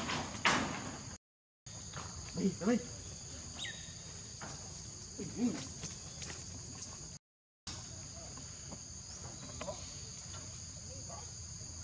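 A steady insect chorus holds two high, shrill tones. Twice, a brief faint voice-like call rises above it. The sound cuts out completely for a moment twice.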